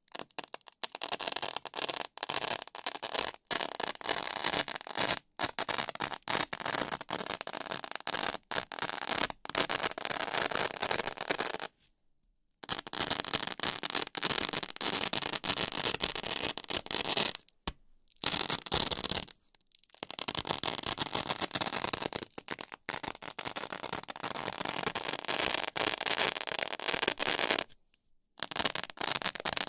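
A coil of hook-and-loop (Velcro) tape rolled under a hand across a Velcro mat, ripping and crackling continuously as its hooks and loops catch and tear apart. It stops briefly four times.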